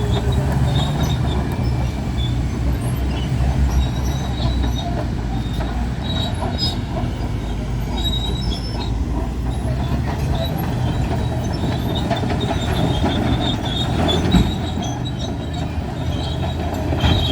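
Heavy mining machinery running: a steady low rumble with scattered high metallic squeals, and a knock about fourteen seconds in and another near the end.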